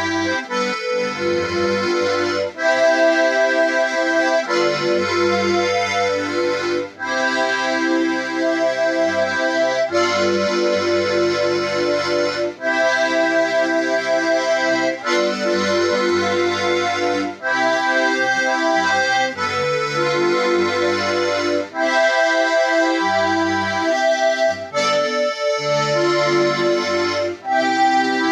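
A solo instrument played live: sustained chords and melody over separate bass notes, in phrases broken by short pauses every two to three seconds.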